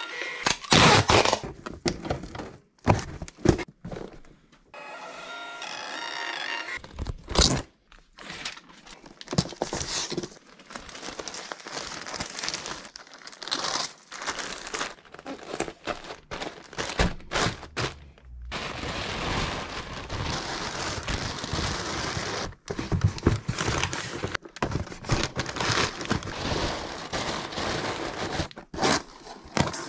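Parcel-packing handling noise: plastic mailer bags and crumpled packing paper crinkling, with many knocks and thuds as items and boxes are handled.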